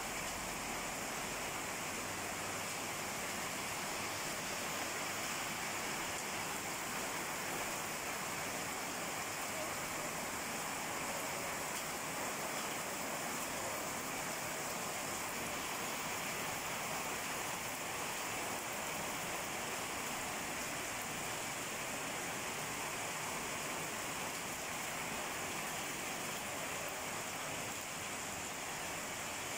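Heavy rain falling steadily, a constant even hiss with no breaks.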